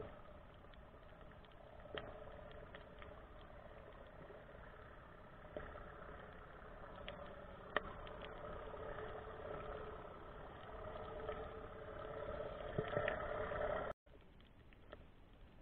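Engine drone heard underwater, building in loudness and then cutting off abruptly near the end, with a few sharp clicks.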